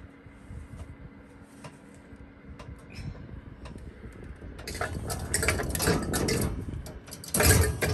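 Metal muffin tin scraping and clattering onto a wire oven rack, for about two seconds from a little past halfway, then a louder clatter near the end.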